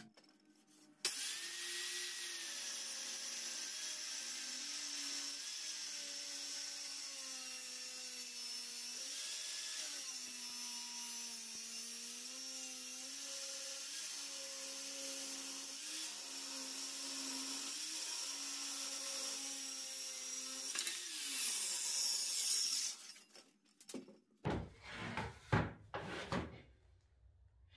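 Corded handheld circular saw starts about a second in and rips along a wooden plank for about twenty seconds, its motor pitch dipping and recovering a little under the load of the cut. It is then switched off and winds down, followed by a few knocks of the boards being handled.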